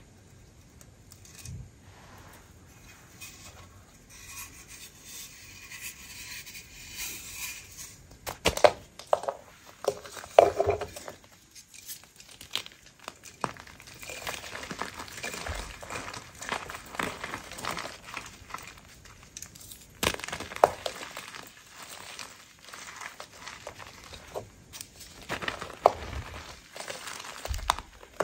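A block of gym chalk being crushed and crumbled in the hands, with crackly crumbling and sharp crunches as pieces break. The two loudest crunches come about eight and ten seconds in.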